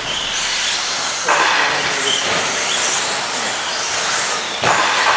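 Several radio-controlled stadium trucks racing on an indoor clay track: a steady hiss of motors and tyres with faint rising and falling whines. It swells suddenly louder about a second in and again near the end.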